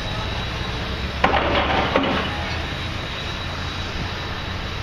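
Steady low hum of a running engine in the background, with a sharp knock about a second in followed by a brief clatter.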